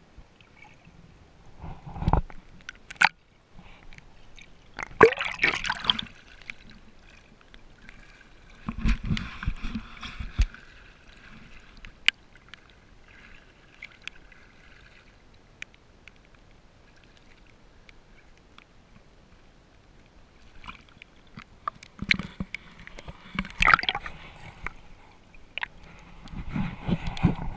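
Water splashing and gurgling in irregular bursts as a snorkeler swims at the surface and dips under, with a few sharp clicks between the bursts.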